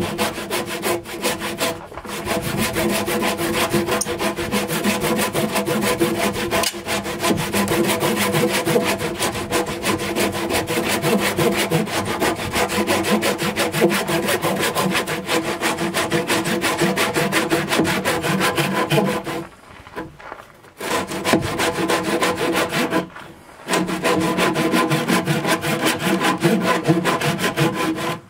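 Handsaw cutting across a rough-sawn timber post in steady back-and-forth strokes. The strokes stop briefly twice in the last third.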